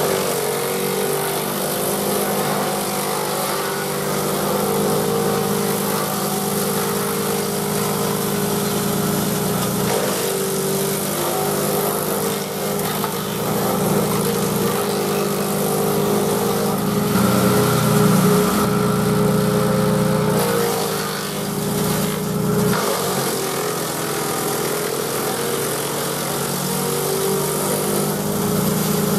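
The 18 HP Vanguard engine of a Grillo G131 walk-behind tractor running at working speed, driving a Caravaggi BIO 150 chipper shredder as branches are fed through. The engine note is steady, with a short change in pitch and a rise in level a little past the middle as the load shifts.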